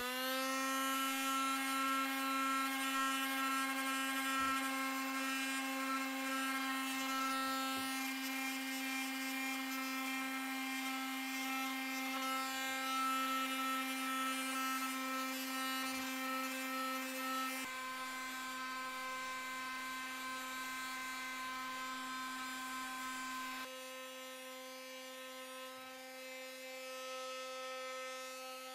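Corded electric sander spinning up and running steadily with a high, even motor hum as it sands a fresh tree branch. The hum drops a little in level twice in the second half.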